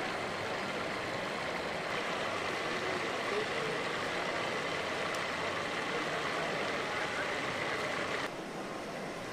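Steady din of a busy exhibition hall, with indistinct voices blended into it. The level drops suddenly near the end.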